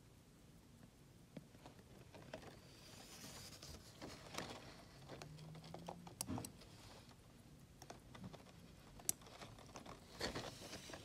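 Sharp mechanical clicks from the pushers of a Landeron 149 chronograph, as it is started, stopped and reset, over soft handling noise of fingers on the steel case. The clicks come singly and in a quick pair about halfway through.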